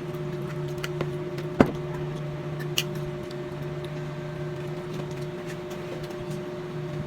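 A steady low electrical hum with a single sharp knock about a second and a half in and a few lighter clicks, typical of utensils and dishes at a meal.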